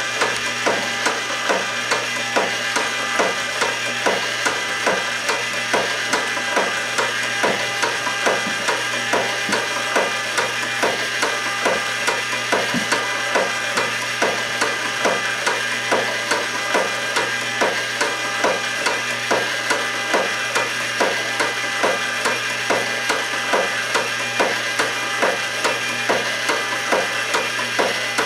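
Wooden gears and linkages of a kinetic horse sculpture running, clacking in a steady rhythm of about two to three knocks a second over a steady hum.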